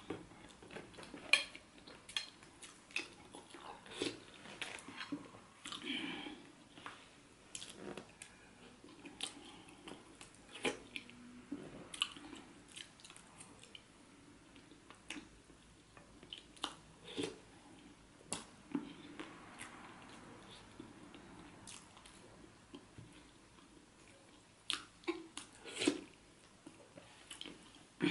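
Close-miked chewing and biting of catfish head and yam in pepper soup, with many scattered sharp clicks and small wet mouth sounds.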